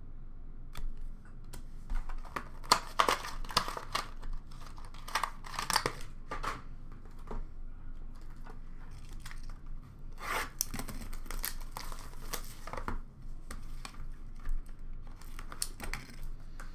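Trading cards and their packaging being handled on a counter: crinkling, tearing and rustling in irregular bursts of short noises.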